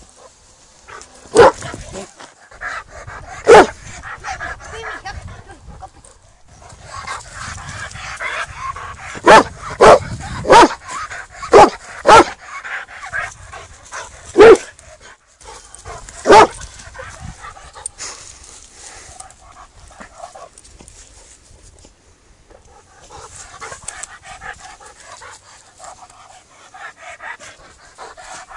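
A dog barking: about nine loud single barks at irregular intervals through the first two-thirds, then only quieter background sound.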